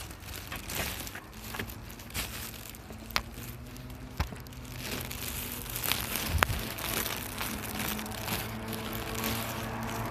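Rustling, scuffing and scattered sharp clicks of handling noise as the phone is carried and jostled on a walk with leashed dogs. A faint steady hum builds near the end.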